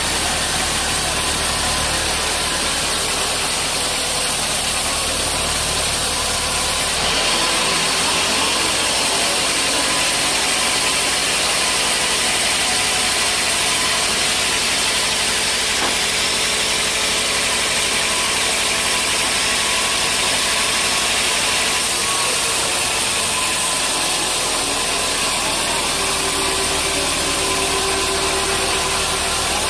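Sawmill machinery running steadily with a loud mechanical drone and hiss. The sound turns brighter and harsher from about seven seconds in until about twenty-two seconds in.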